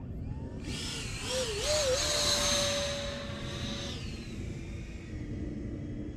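Electric motor of a 3D-printed Mirage 2000 RC jet whining in flight: the pitch wobbles up and down a few times, then holds steady and fades out about four seconds in. A low steady rumble of wind noise runs underneath.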